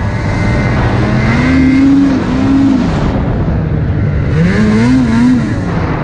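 2020 Lynx Boondocker snowmobile engine running under load through deep snow, revving up and back down twice, with the pitch climbing and falling each time.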